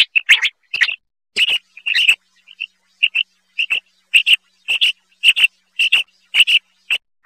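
Male common quail song: short, sharp call notes repeated at a steady pace, often in quick pairs about twice a second, more crowded together in the first second.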